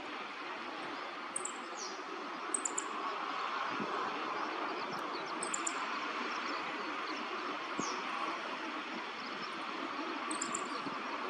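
Small birds giving short, very high chirps in quick clusters of two or three notes, every couple of seconds, over a steady background rumble of distant traffic.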